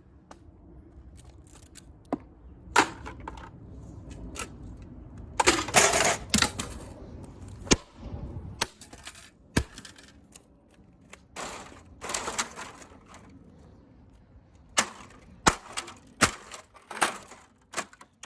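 Irregular clicks, knocks and rattles of hard plastic and metal parts being handled and pried apart during dismantling. There is a louder scraping clatter about six seconds in, and a run of sharp knocks near the end.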